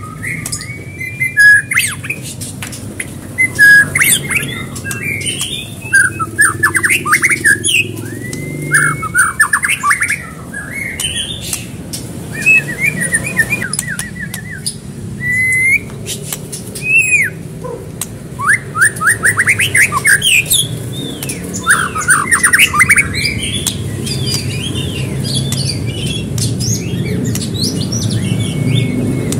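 White-rumped shama (murai batu) in full song: a long run of loud, varied whistled phrases, fast trills and chattering notes, broken by short pauses. The phrases grow softer and higher near the end. A steady low hum runs underneath.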